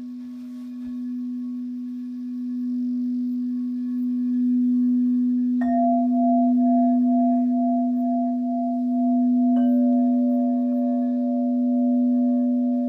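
Singing bowls ringing: a low, steady humming tone that slowly swells. Two other bowls are struck, one about six seconds in and one near ten seconds, each adding a higher note that rings on over the hum.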